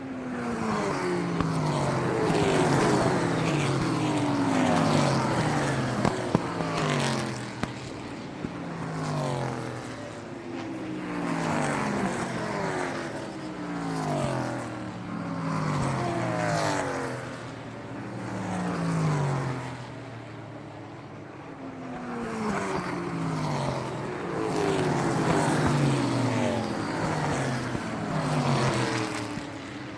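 Car engines passing by one after another, each engine note dropping in pitch as it goes past, with the sound swelling and fading every couple of seconds. A few sharp clicks come about six to seven seconds in.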